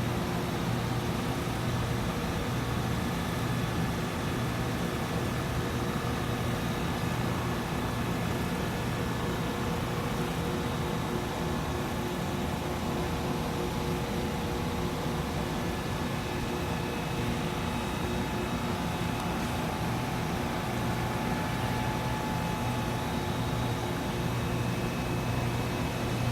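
Steady machinery hum with a strong low tone and a few fainter steady whines above it, unchanging throughout.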